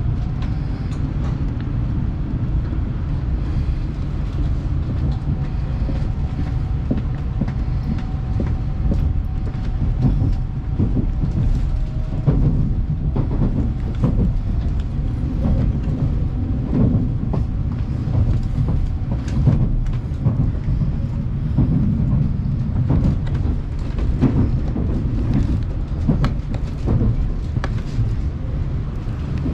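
Steady rumble of an N700S Shinkansen car heard from inside the passenger cabin as the train pulls out of the station and gathers speed. A faint whine rises slightly at first and then holds, with scattered knocks from the wheels over the track.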